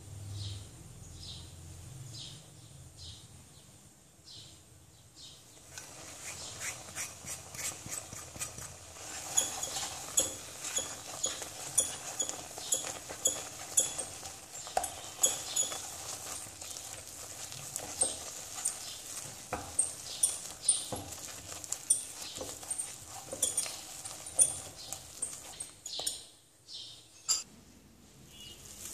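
A spatula stirring a thick mango halwa mixture in a non-stick pan, scraping and knocking on the pan in irregular sharp clicks and taps. The clicking becomes dense about six seconds in.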